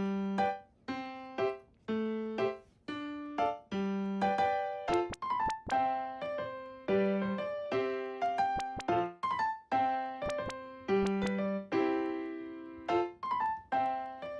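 Background music: a light, bouncy piano-style keyboard tune of short struck notes that fade quickly, at a steady beat.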